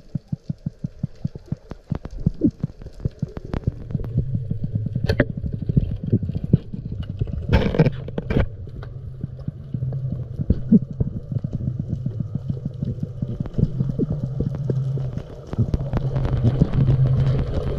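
Muffled underwater sound picked up by a camera in a waterproof housing while snorkeling. A fast run of knocks and scattered clicks comes first. From about four seconds in a steady low drone sets in, and two louder bursts come near the middle.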